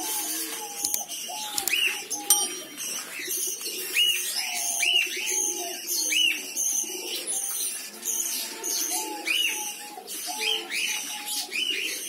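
Diamond doves cooing, with short higher chirps from other cage birds repeating irregularly over them.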